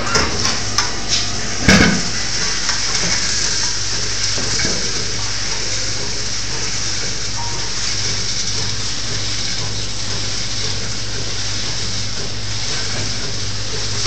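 Milking parlour machinery running: a steady hiss with a low hum from the vacuum milking system. A few sharp knocks come in the first two seconds, the loudest just before two seconds in.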